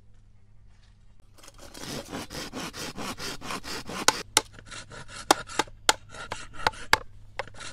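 Rapid, rough scraping or rasping strokes start about a second and a half in and run on; in the second half they come with several sharp clicks.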